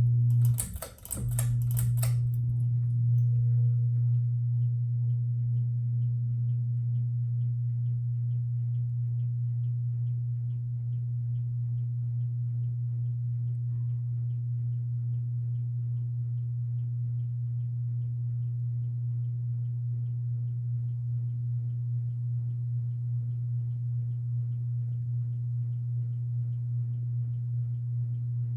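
Westinghouse Richboro SE ceiling fan motor giving a loud, steady electrical hum, the irritating hum this fan is known for at its lower speeds. About a second in, the hum cuts out briefly under a short crackle. Faint regular ticking can be heard above the hum.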